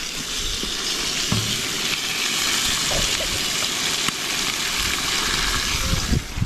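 Bacon, eggs and sausage frying, a steady sizzle that cuts off suddenly near the end.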